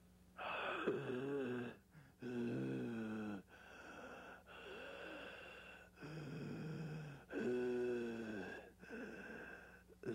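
A person breathing heavily and noisily, with a groaning, rasping voice on each breath. There are about eight breaths in a row, each a second or so long, starting half a second in and alternating louder and softer.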